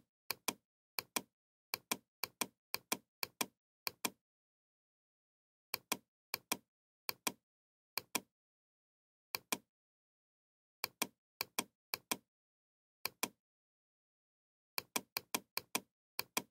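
Computer mouse clicking sharply, mostly in quick pairs, in runs of several clicks with short pauses between, while a document is scrolled on screen.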